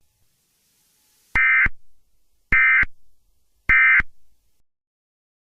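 Emergency Alert System SAME end-of-message code: three short bursts of digital data tones, about a second apart, marking the end of the alert.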